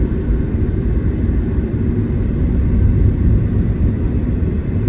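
Steady low road and tyre rumble inside the cabin of a Tesla electric car driving along a street, with no engine sound.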